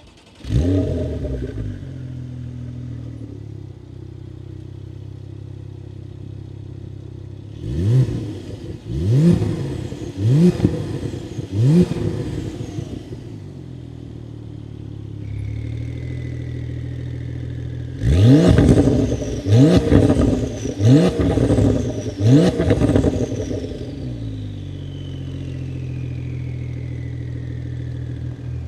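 Porsche 992.2 Carrera T twin-turbo flat-six with Soul Performance 200-cell sport link pipes and valved muffler starting with a flare and settling to idle. It then gets four quick throttle blips with the exhaust valves closed. With the valves open the idle is a little louder and five sharper blips follow.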